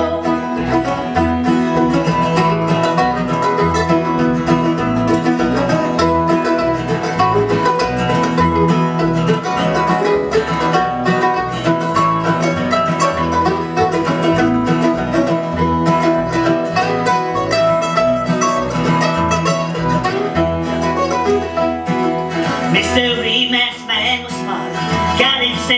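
Instrumental break of an acoustic bluegrass string band playing live: strummed acoustic guitars and a plucked lead line over an upright bass keeping a steady beat, with no singing.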